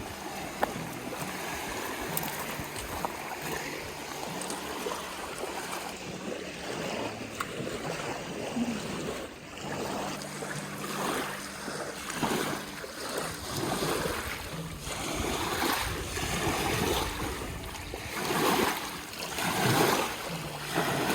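Water splashing and lapping at a lake shore, coming in uneven surges.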